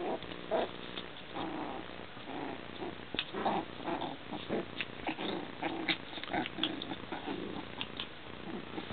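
Coton de Tulear puppies play-fighting, growling in short, irregular bursts.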